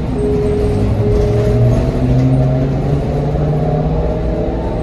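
New Flyer XT60 electric trolleybus running, its traction motor whining in several tones over rumble and road noise. The tones rise slowly in pitch as the bus picks up speed.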